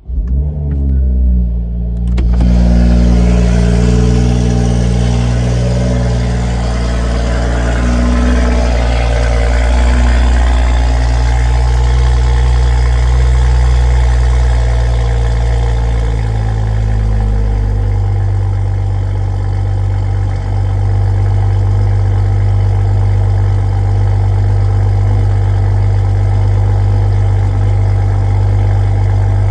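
A 2021 Toyota Supra 3.0's turbocharged inline-six, with an HKS cat-back exhaust and a Powerneedy catted downpipe, cold-starting. It fires up and settles into a high, steady fast idle, which drops to a lower idle a little past halfway through.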